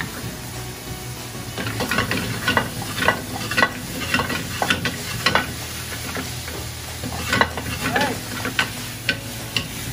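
Vegetables frying in olive oil in a hot skillet on a gas range, sizzling steadily, with a run of sharp metal clinks and scrapes as they are stirred with tongs and tossed in the pan, thickest in the middle and again near the end.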